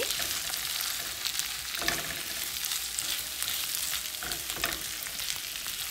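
Onions and ginger-garlic paste frying in oil in a pan, a steady sizzle. It is stirred, with a couple of faint brief knocks about two seconds and four and a half seconds in.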